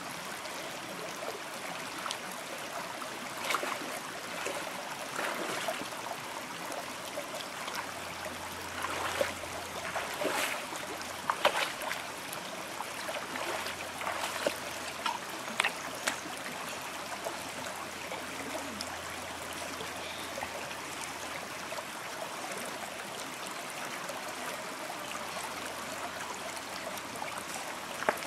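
Shallow rocky stream running steadily, with intermittent splashes of a person wading through the water, mostly in the first half.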